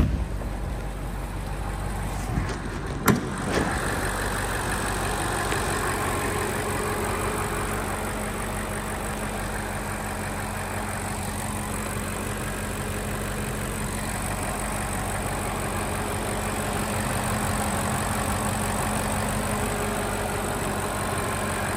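A sharp click at the start and two more about two and a half and three seconds in as the hood is released and raised, then the BMW M850i's 4.4-litre twin-turbo V8 idling steadily under the open hood.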